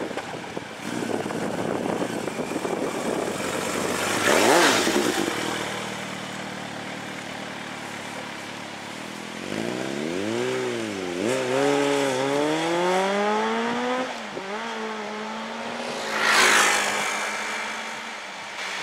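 Kawasaki ZXR 750 sport bike's inline-four engine accelerating hard, its pitch climbing and dropping back at each gear change over several seconds. Two loud, brief rushing pass-bys, one about four seconds in and one near the end.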